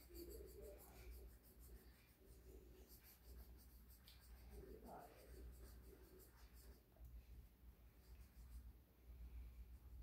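Faint scratching of a coloured pencil on paper in quick, closely spaced strokes. The strokes pause about seven seconds in and start again briefly a second later.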